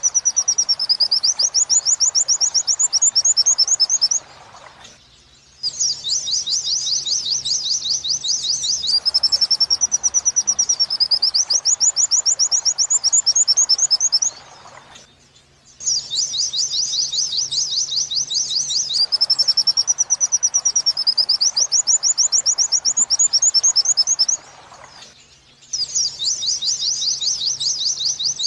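White-eye (pleci) song: rapid high 'wit-wit' trills mixed with wavy rising-and-falling whistles. It comes in long bouts broken by short pauses about every ten seconds, the pattern of a looped master recording for tutoring songbirds.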